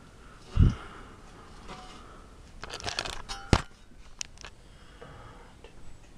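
Handling noises: rustling, small clicks and two low thumps, about half a second in and three and a half seconds in, as the LCD panel's metal frame and the camera are moved about.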